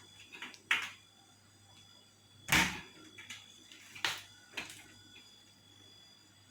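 A handful of sharp knocks and clatters: several light ones in the first second, the loudest about two and a half seconds in, and two more around four seconds in, over a faint steady hum.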